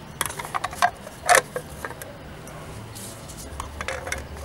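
Wheel center cap being fitted onto an alloy wheel: a series of clicks and knocks as it is handled and pressed into place, the loudest about a second in and a few more near the end.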